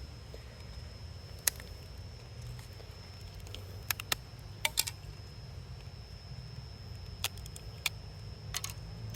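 Scattered sharp clicks and small snaps, single or in quick clusters, from the broken LG phone's parts being handled and pulled apart, ending with a connector ripped off. A faint steady high whine and low hum run underneath.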